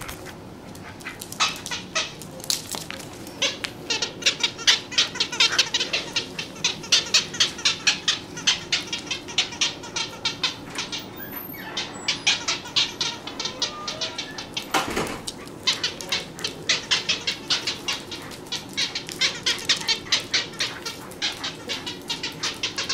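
Short, high squeaks repeated two to three times a second in long runs, with a break about halfway through and one sharp thump a little after.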